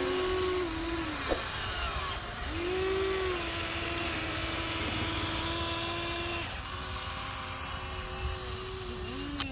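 Small electric motors of a radio-controlled construction model whining in several runs of a few seconds each, the pitch rising as each run starts and dropping as it stops, with a short click a little over a second in.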